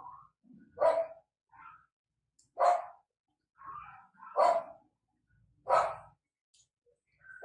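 A dog barking: four loud barks spaced about one and a half to two seconds apart, with fainter sounds in between.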